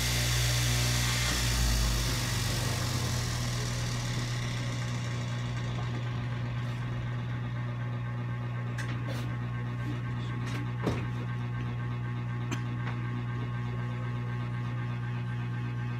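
Electric straight-knife cloth cutting machine running with a steady motor hum. A brighter hiss from the blade in the first few seconds fades out, and a few light clicks follow later on.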